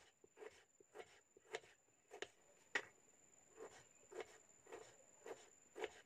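Kitchen knife slicing a tomato on a bamboo cutting board: about ten faint, evenly spaced strokes, roughly two a second, each ending in a light tap of the blade on the wood.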